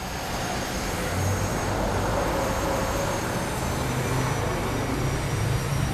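Road traffic: a steady rushing rumble of a passing vehicle that grows louder over the first couple of seconds and eases off slightly near the end.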